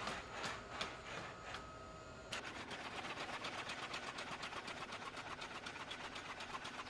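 Spot quadruped robot's feet tapping on a concrete floor, a bit under three steps a second. About two seconds in, the sound changes suddenly to a faint, fast, even mechanical ticking of about ten ticks a second.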